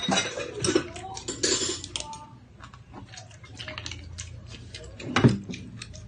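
Spoon and fork clicking and scraping against a plate while eating rice and seafood, a run of short sharp clinks, with one louder clink about five seconds in.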